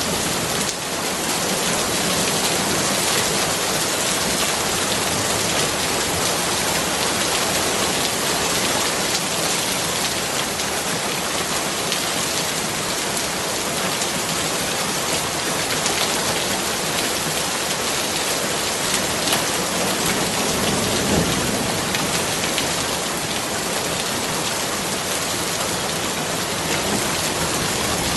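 Steady rain falling, an even hiss of many drops at a constant level.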